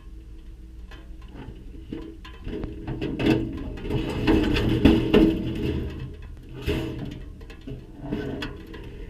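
Metal scrap clattering and knocking as it is handled and thrown onto a load, busiest and loudest in the middle, with background music faintly underneath.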